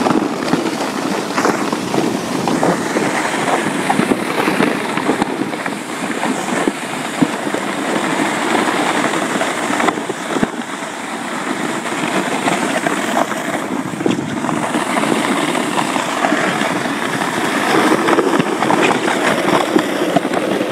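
Steady scraping crunch of travel over a packed, icy snow road while being towed by a running husky, with small crackles and clicks throughout.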